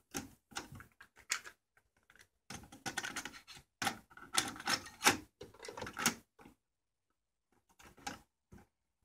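Plastic clicking and clattering as a stereo cassette deck is worked by hand: its buttons pressed and a cassette handled at the tape door. Dense irregular clicks for the first six seconds or so, then a few more near the end.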